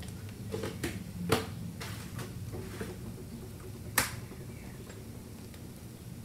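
Light clicks and taps of kitchen items being handled while spices go into mashed potatoes, with two sharper knocks, one about a second in and one about four seconds in, over a low steady hum.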